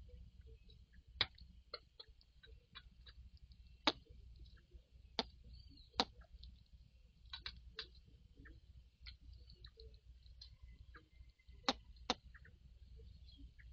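Irregular sharp clicks, a handful of them loud and many faint, over a steady high-pitched hiss like an insect chorus and a low background rumble. No rail call is heard.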